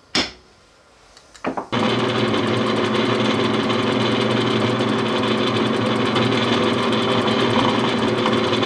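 A few short clicks, then about two seconds in a drill press starts and runs steadily as its twist bit bores a 13/64-inch hole into a block of ABS plastic.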